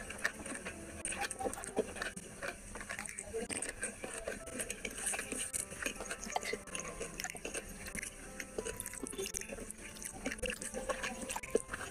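Close-miked eating sounds of someone eating rice and curry by hand: wet chewing and lip smacks, with squelches of fingers mixing the rice and gravy, as many small irregular clicks.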